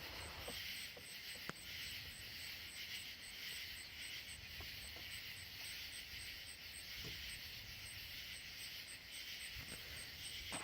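Insects chirping: a steady high hiss of many insects, with one chirping high and evenly about two to three times a second, over a faint low rumble. A single sharp click sounds about a second and a half in.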